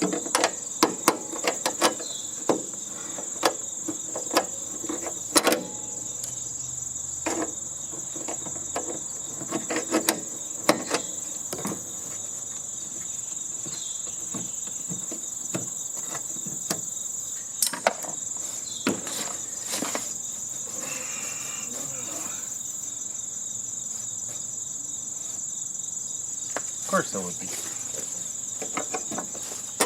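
Crickets chirring in a steady high trill, over sharp clicks and knocks of tools and metal parts being handled while an air-conditioning unit is taken apart. The knocks come thick in the first dozen seconds, then only now and then.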